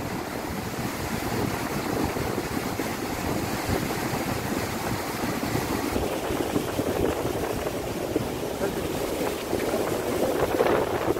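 Wind buffeting the microphone in a steady low rush, with the wash of choppy open water beneath it.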